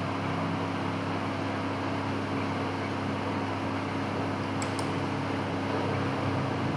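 Steady low background hum, with two faint sharp clicks close together about four and a half seconds in, typical of mouse clicks.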